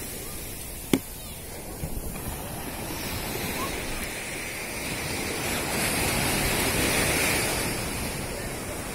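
Sea surf washing onto a sandy beach, a steady rushing that swells a little about six seconds in. A single sharp click sounds about a second in.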